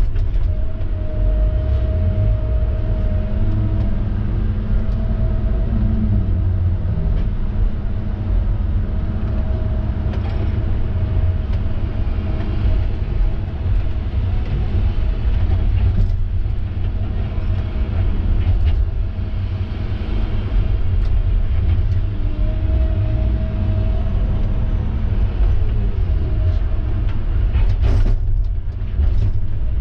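Heavy vehicle running steadily: a deep, even rumble with a faint engine hum that fades in and out over it.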